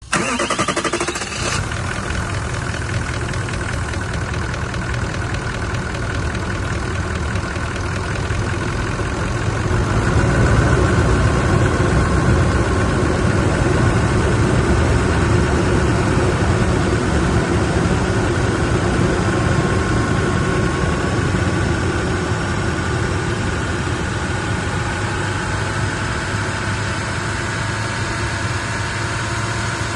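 Toyota 1VD-FTV V8 diesel engine running steadily at idle, with an abnormal engine noise put down to a faulty camshaft. It gets a little louder about ten seconds in and holds there.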